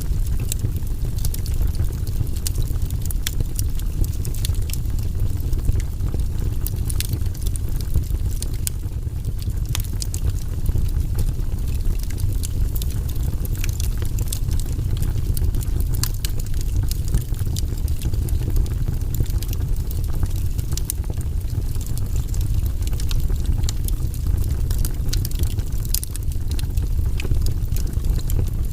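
Wood campfire crackling, with many sharp irregular pops and snaps over a steady low rumble.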